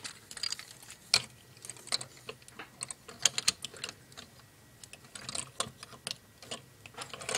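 Hard plastic parts of a Transformers Construct-Bots Megatron figure and the loose building pieces around it, clicking and clattering as the figure is handled. The clicks are irregular, with small clusters about three seconds in and again about five seconds in.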